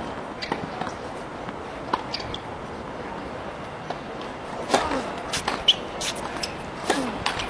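Tennis ball being struck by rackets and bouncing on the court during a rally: a few scattered hits early, then a quick run of sharp strikes in the second half.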